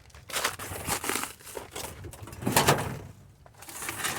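Debris crunching and crinkling in irregular bursts, louder about two and a half seconds in and again near the end.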